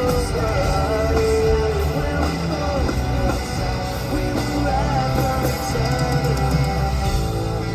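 Live pop-punk rock band playing, with guitars and a wavering melody line over steady low bass.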